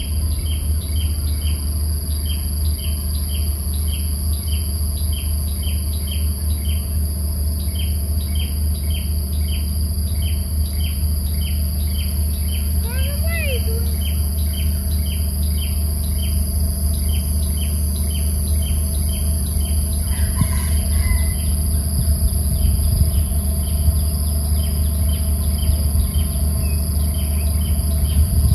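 Insects chirping in a steady rhythm about twice a second over a continuous high-pitched drone, with a couple of brief bird calls around the middle, all over a steady low rumble.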